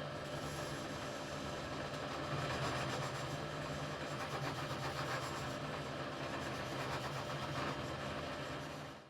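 Electric power tool running steadily with a low hum, with abrasive rubbing against the workpiece as in sanding or grinding; it cuts off suddenly at the very end.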